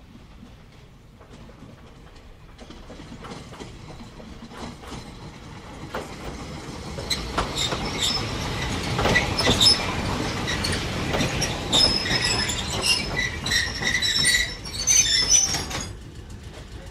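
Fukui Railway Nanetsu Line electric train pulling into a station. The wheels clatter over the rail joints, growing louder as it nears, and the wheels squeal shrilly as it slows. The sound drops away suddenly as it comes to a stop near the end.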